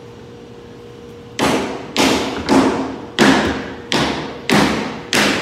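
A plywood panel being knocked down into a wooden crate top by hand: a series of hollow thumps starting about a second and a half in, roughly one every half second or so, each with a short ringing tail in the large room.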